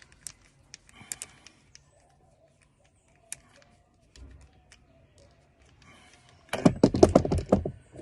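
Scattered small clicks and scrapes of a screwdriver and plastic plug parts being handled while a wire's terminal screw is tightened, then a loud burst of rattling and knocking handling noise near the end.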